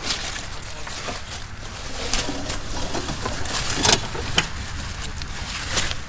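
Large cucumber leaves and vines rustling and crackling in short brushes as a hand pushes through them, over a steady low rumble.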